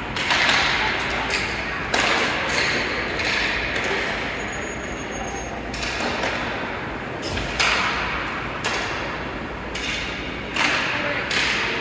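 Ice hockey play on a rink: skates scraping across the ice, with irregular knocks and thuds from sticks, puck and boards.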